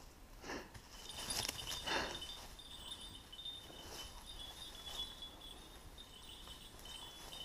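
Faint, broken tinkling of a hunting dog's bell collar as the dog quests through the undergrowth, with soft rustling of dry bracken now and then.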